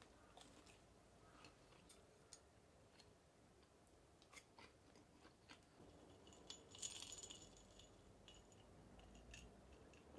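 Near silence, broken by faint scattered clicks and taps of tableware being handled, with a brief clatter about seven seconds in as the plate and glass are moved.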